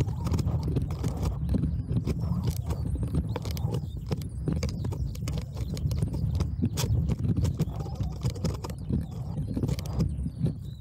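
Bicycle rolling fast over a bumpy dirt track: a steady low rumble with many irregular clicks and rattles as the bike jolts over the ruts. The clicking thins out near the end as the wheels reach asphalt.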